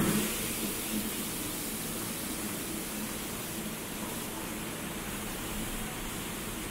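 Steady subway-station ambience: an even hiss of air handling in an underground concourse, with no distinct events.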